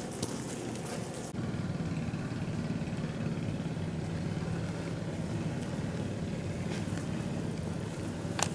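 A few light clicks, then from about a second in a steady low hum that sets in abruptly and runs on, with one sharp click near the end.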